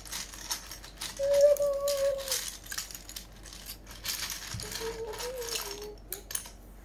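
Plastic Lego bricks clattering and clicking as hands rummage through a wicker basket full of them, with two brief hummed notes, the first about a second in and the loudest.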